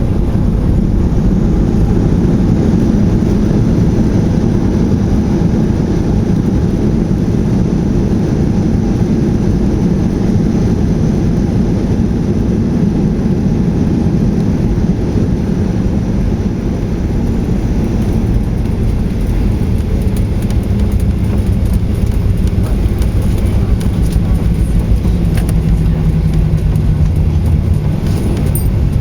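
Boeing 737-800 heard from inside the passenger cabin on the ground after landing: steady, loud rumble from its CFM56 engines and the rolling airframe. The rumble eases somewhat about sixteen seconds in, and faint steady engine tones come through near the end.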